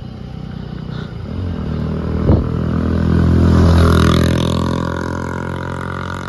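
A motor vehicle passes on the road: its engine grows louder, is loudest about four seconds in, then fades as it goes by. A short knock is heard just after two seconds in.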